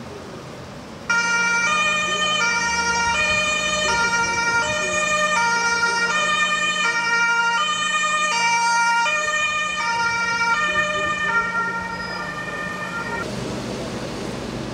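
German two-tone emergency-vehicle siren (Martinhorn) sounding its alternating high-low pattern, switching pitch about every three-quarters of a second. It comes on abruptly about a second in and fades out near the end.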